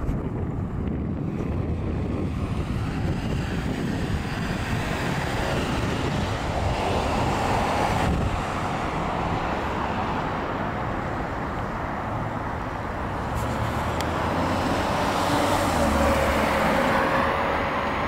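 Road traffic: cars and trucks passing by, getting louder as one goes past about seven seconds in and again near the end.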